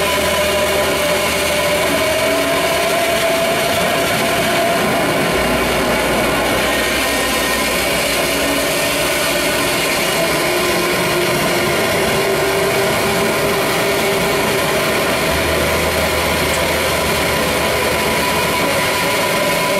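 Live noise music: a dense, steady wall of distorted sound from an electric bass guitar and synthesizer through effects pedals, with a sustained drone that slowly bends in pitch. A deep low tone comes in about five seconds in and holds.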